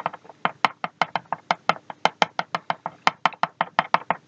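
Rapid, even tapping of a glass slide's edge onto powder packed in a metal diffraction sample holder, about six light knocks a second: the powder is being stamped flat and spread evenly across the holder's surface.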